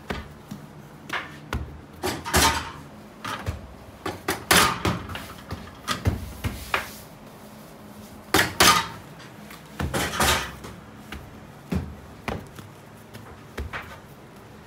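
Bakers handling bread dough: irregular soft thuds as dough balls are set down and pressed on a floured board, with rustling of the cloth cover, several loud ones about two, four and a half, eight and a half and ten seconds in.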